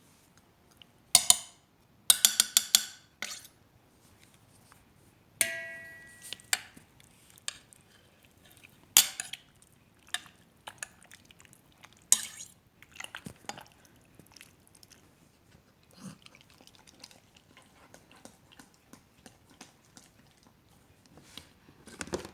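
Metal kitchenware clinking and clattering: a quick run of sharp clatters about two seconds in, one ringing clang about five seconds in, and further knocks and softer clicks after that.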